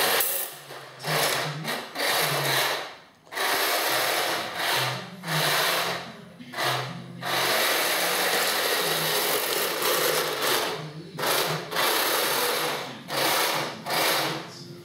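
Heng Long 1/16 RC tank's small electric drive motors and gearboxes whirring in stop-start spurts as it drives and turns on carpet, cutting out and starting again about a dozen times.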